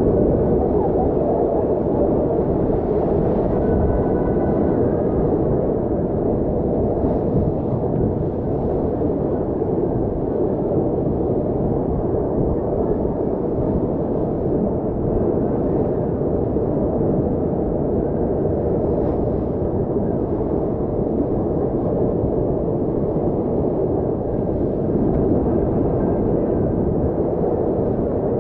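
Steady, dull rush of fast-flowing water from a Citywave standing-wave surf pool, heard from a surfboard riding the wave, with a faint steady hum underneath.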